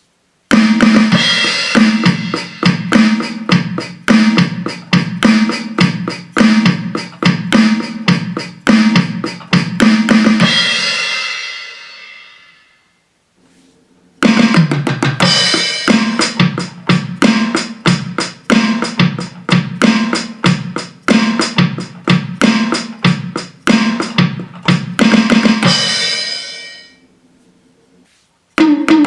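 Donner DED-50T electronic drum kit voices playing a steady rock-style beat of kick, snare and cymbals. Two grooves of about twelve seconds each, each ending on a cymbal that rings out, as the module switches from one preset kit to the next; a third groove starts just before the end.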